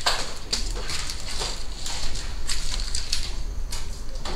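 Footsteps crunching and scraping on a debris-strewn floor in irregular, uneven strokes, over a low rumble.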